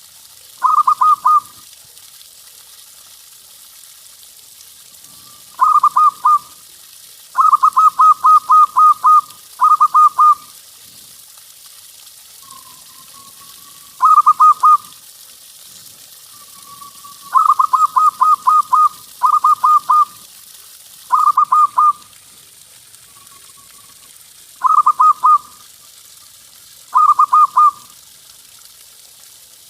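Zebra dove (perkutut) cooing in repeated bouts of fast staccato coos, each bout about a second or two long. Softer single coos fall in some of the pauses.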